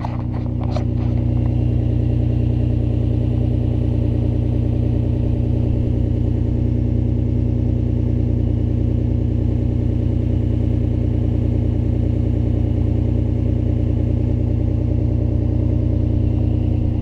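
2004 Nissan Maxima's 3.5-litre VQ35DE V6 idling steadily just after a cold start, heard close to its straight-through N1-style RS Type cat-back exhaust. It gets louder about a second in, then holds level with no revving.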